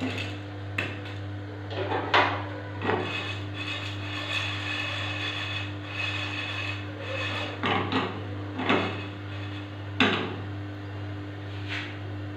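A metal spatula scraping and stirring in a frying pan, with several sharp knocks against the pan, over a steady low hum.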